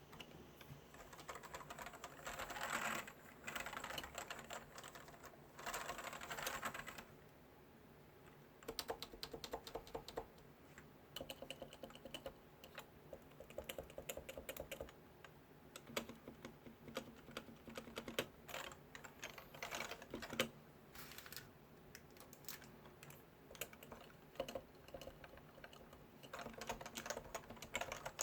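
Typing on a Leopold FC980C keyboard with Topre electro-capacitive (rubber-dome-and-spring) switches: quick runs of keystrokes, fast flurries at first and again near the end, sparser strokes and a short pause in between.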